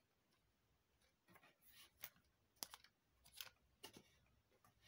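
Near silence with a handful of faint, short plastic clicks and light handling noise from a Kenner Man-Bat action figure as its wings are pulled out straight, mostly through the middle and latter part.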